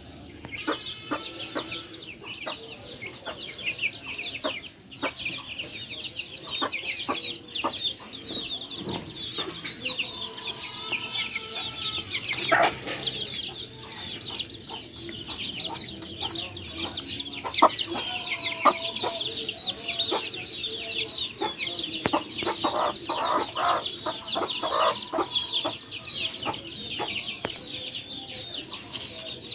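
Backyard free-range chicken flock: a constant chorus of many high-pitched chick peeps, with lower hen clucks and scattered sharp clicks.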